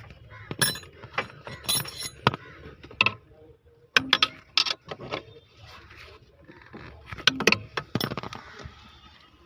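Hand tools and metal parts clinking and clattering in irregular sharp clicks while a steering column is bolted back into place.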